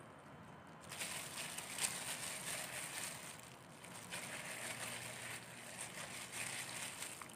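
Disposable plastic gloves crinkling and rustling as paprika is sprinkled and rubbed onto a raw whole chicken, starting about a second in.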